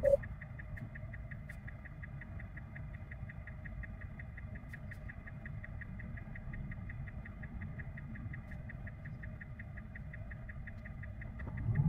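Quiet Tesla Cybertruck cabin with the truck stopped: a low rumble under a rapid, even ticking, about five ticks a second.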